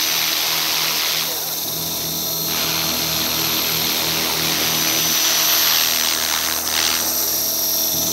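Align 450-size electric radio-controlled helicopter flying close overhead: a steady high whine from its motor and gears over the hiss of the spinning rotor blades.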